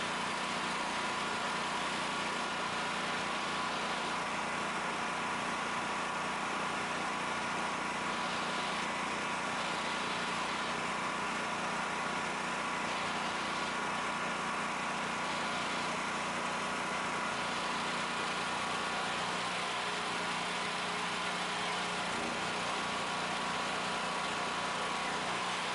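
Generator engine running steadily at a constant speed, a continuous even drone with a steady hum.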